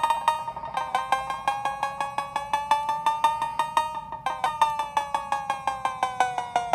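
Sampled cowbell from a Maschine 2.0 drum machine playing a fast, even pattern of about eight hits a second. Its pitch drifts and sinks a little lower near the end as pitch-wheel modulation is applied.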